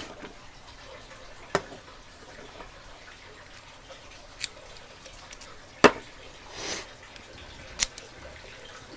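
A few isolated sharp metallic clicks from a lock being raked with a snake rake pick, four ticks spread a second or more apart, with a brief soft rustle between the last two.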